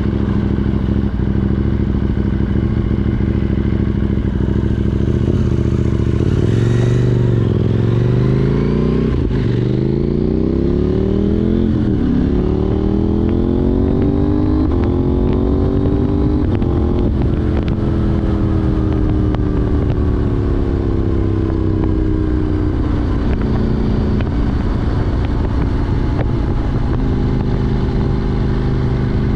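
KTM 790 Duke's parallel-twin engine through an Arrow Race Tech exhaust with de-cat pipe, under way. It runs steadily, dips briefly about seven seconds in, then accelerates through three upshifts, the pitch rising and dropping at each change, then falls slowly as the bike slows and settles into steady running near the end.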